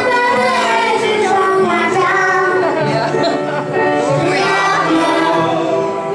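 A young girl singing a song into a microphone over instrumental backing music.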